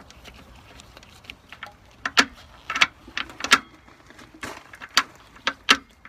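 Sharp metallic clicks and taps at irregular intervals, starting about two seconds in: multi-tool pliers and small steel hardware knocking on a nut on a battery switch's threaded stud as it is tightened.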